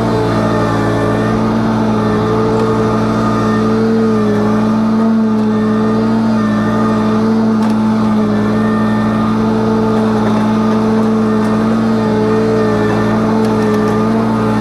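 An engine running steadily at a constant speed, with a slight waver in pitch.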